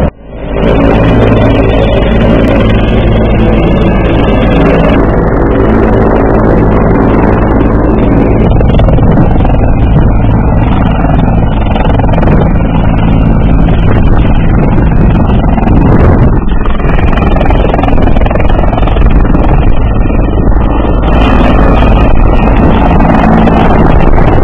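Bell 412 twin-turbine helicopter hovering low and lifting off close by: loud, steady engine and rotor noise that does not let up.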